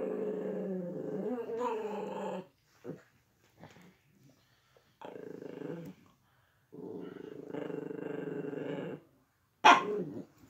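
Dog growling in three long, steady growls, then one short loud bark near the end. The dog is angry and defensive, treating a computer mouse moved toward it as an attacker.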